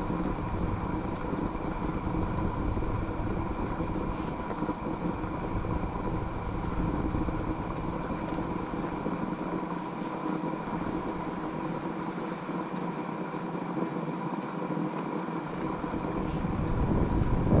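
Wind rumbling on a moving GoPro's microphone, under a faint steady hum. The rumble drops away for several seconds past the middle and comes back stronger near the end.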